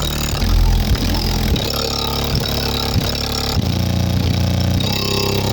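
Bass-heavy hip-hop beat playing through a car's stock stereo and its JBL subwoofer, deep bass notes under a steady beat of about two strikes a second.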